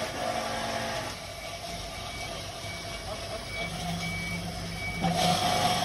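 Fruit-grinding piston press machine running with a steady mechanical whine; it eases about a second in and grows louder near the end.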